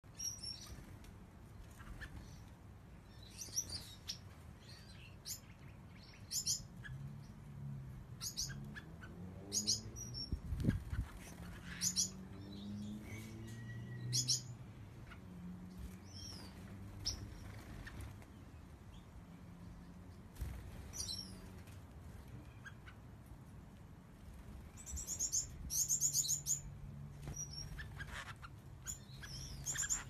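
Aviary finches chirping: short high chirps, often in quick clusters of repeated notes, busiest near the end. A faint low hum runs underneath, with a single low thump partway through.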